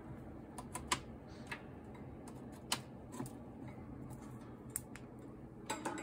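A few scattered light plastic clicks and knocks as a repaired USB plug is pushed into a USB hub and its cable handled.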